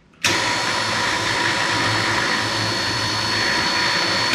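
KFI Stealth 4500 electric winch motor running, paying out its line: a steady whine that starts about a quarter second in and cuts off sharply near the end. This is the winch's first powered test after the new contactor wiring, and it runs.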